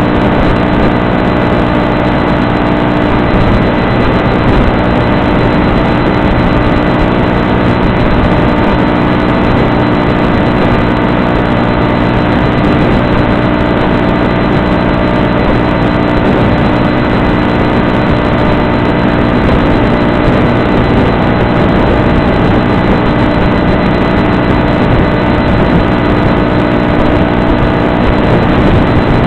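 Electric motor and pusher propeller of a Stratosurfer RC plane running at a steady cruise throttle, a constant drone with fixed tones, mixed with wind. It comes through the plane's low-fidelity onboard FPV audio.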